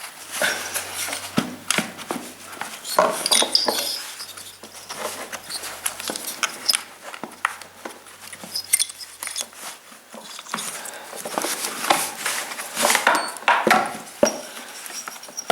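Irregular clicks, knocks and light metal clinks from handling the loosened engine parts of a SOLO 642 chainsaw during disassembly.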